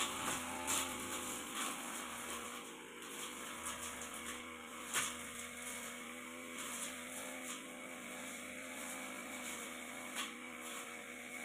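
Backpack brush cutter's small engine running steadily at working speed while it cuts light grass and undergrowth, with a few sharp clicks, the loudest about five seconds in.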